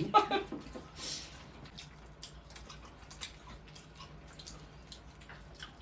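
People chewing and biting into raw napa cabbage-leaf rice wraps: soft wet mouth clicks and smacks scattered throughout, with a brief hiss about a second in.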